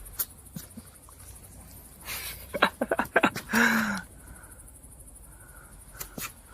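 Crickets chirping steadily, high-pitched, with a cluster of sharp taps and scuffs about two to three seconds in and a brief low, falling sound just after.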